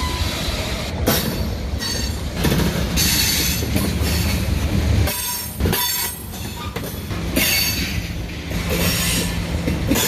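Freight train boxcars rolling past close by: a steady rumble of steel wheels on rail with intermittent clacks, and a thin high squeal from the wheels.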